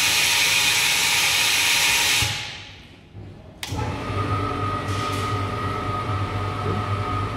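Loud hiss of air rushing back into the mixer's vacuum chamber through the opened vacuum-release valve, dying away about two to three seconds in. After a short lull a steady machine hum with a thin high whine starts abruptly and runs on.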